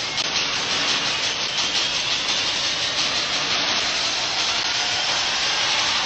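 Water splashing and rushing as a man runs through shallow pond water. There are quick regular splashes, about four a second, in the first second or so, then a steady wash of water noise.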